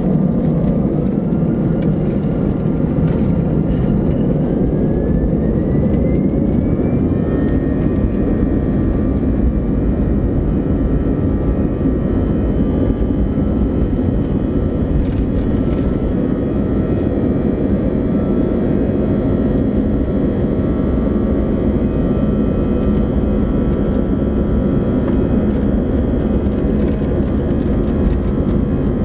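Airbus A320 jet engines heard from inside the cabin, spooling up for takeoff: a whine rises in pitch over the first seven seconds or so, then holds steady over a loud rumble as the airliner accelerates along the runway on its takeoff roll.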